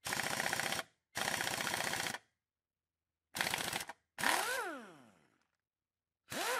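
Bosch 12-volt cordless impact driver hammering in five short bursts on the trimmer's idler pulley bolt. Its motor whine rises as each burst starts and falls away as it stops.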